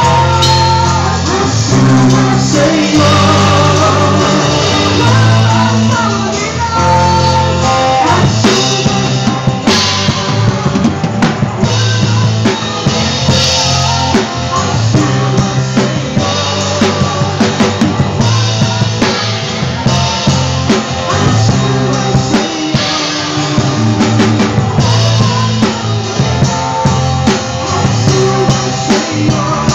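Worship song with singing over sustained bass notes, and a drum kit keeping a steady beat that grows more prominent about twelve seconds in.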